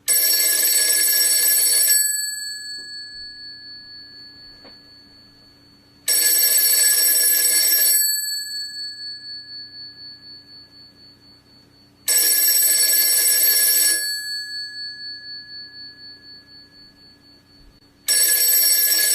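Telephone ringing in rings of about two seconds, one every six seconds, each ring fading out slowly with a wavering tail. A fourth ring starts just before the end.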